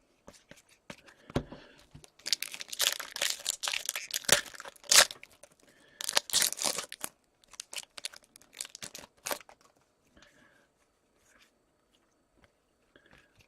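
Foil wrapper of a hockey card pack being torn open and crinkled, in two spells about two and six seconds in, followed by light clicks of the cards being handled.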